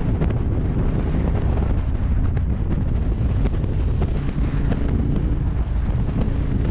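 Wind rushing over the microphone of a camera on a moving motorcycle, a steady low rumble, with the motorcycle's engine running underneath at cruising speed.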